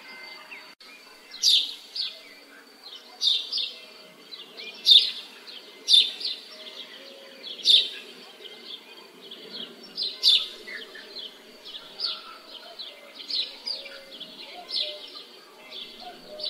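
Songbirds chirping over a faint, steady low background of village ambience; loud, short chirps that drop in pitch repeat every one to two seconds.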